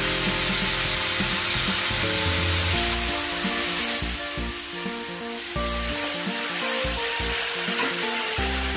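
Cabbage and carrots sizzling in a hot oiled pan as they are stirred with a wooden spatula, over background music with held notes throughout.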